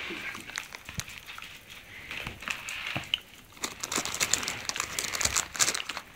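Rustling and crinkling noise with many short, sharp clicks scattered through it, the clicks thicker and louder in the second half.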